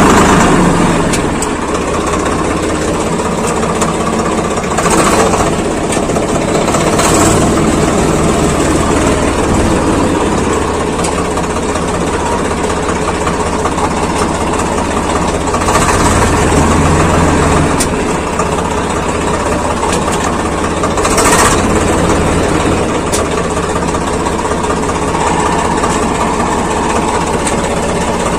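Swaraj tractor's diesel engine running steadily, heard from the driver's seat, with a few brief rises in level.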